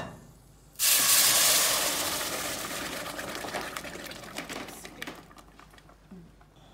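Blended green tomatillo and chile salsa poured into a hot stainless steel pot, hitting it with a sudden loud sizzle about a second in that slowly dies away over the next few seconds, with scattered small pops.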